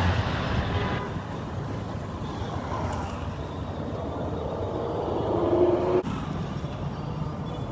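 Road traffic passing close: a motorcycle and a car go by, with engine noise over a steady traffic background. One engine's pitch rises about five seconds in.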